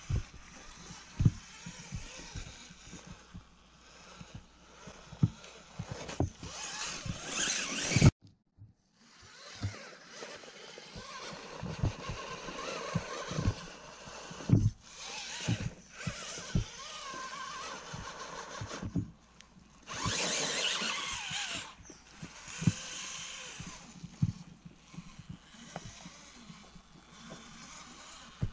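Axial Capra radio-controlled rock crawler's electric motor and gear drivetrain whirring in short bursts of throttle as it climbs rock, with scattered sharp knocks and scrapes from its tyres and chassis on the stone.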